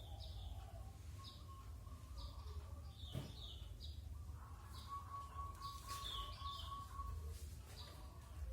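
Bird chirping, short high chirps repeated about once a second over a faint steady low hum, with a single click about three seconds in.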